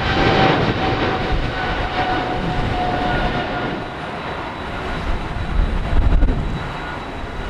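Boeing 777 freighter's twin GE90 turbofan engines at takeoff thrust as the jet rotates and lifts off: a dense rushing noise with a faint whine that dips slightly in pitch, slowly growing fainter.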